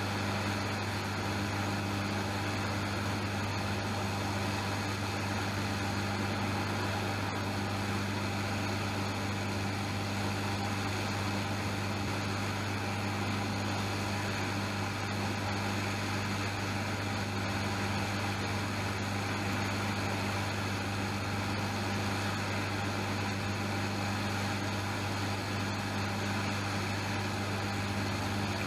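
Hot air rework station blowing steadily on a circuit board as solder is melted to lift off small capacitors: an even hiss of air over a steady low hum.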